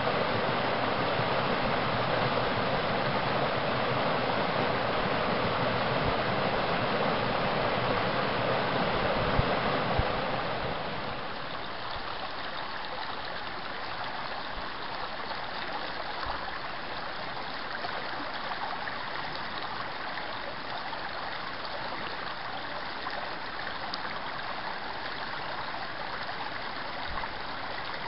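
Creek water rushing over rocks at a small cascade, a steady wash. About ten seconds in it turns quieter and thinner, the gentler burble of shallow water running over stones, with a couple of brief knocks just before the change.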